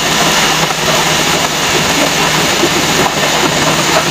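Electric woodworking machine running steadily, a constant motor hum under a broad rushing noise.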